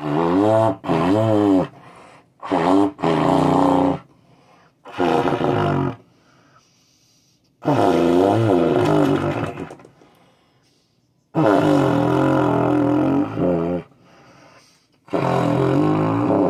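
Trumpet blown to give low, buzzy, tuba-like blasts that sound like a big fart: about seven separate blows, each a second or two long, with the pitch wavering and sliding.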